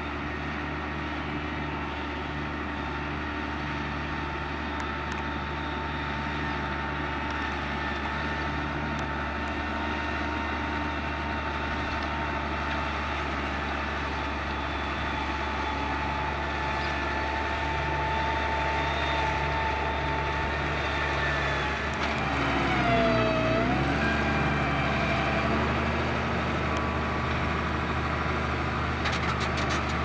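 New Holland T6050 tractor's diesel engine running steadily under load while pulling a 4-furrow Kverneland reversible plough through the soil. Its note dips and recovers about three-quarters of the way through, and the sound grows slowly louder as the tractor comes closer.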